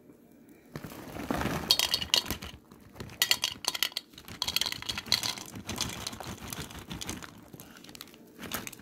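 Trail mix (nuts, raisins and candy-coated chocolates) poured from a bag into clear plastic cups, the pieces rattling and clinking against the plastic in several pours, starting about a second in.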